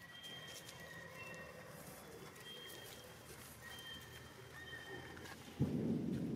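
Several faint, thin, high whistle-like animal calls, each under a second long. About five and a half seconds in, a sudden loud rustling or scuffling noise starts and carries on.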